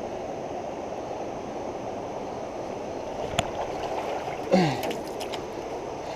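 Steady rush of a fast-flowing, flooded creek. A sharp knock comes about three seconds in, and about a second later a short sound slides downward in pitch, followed by a few light clicks.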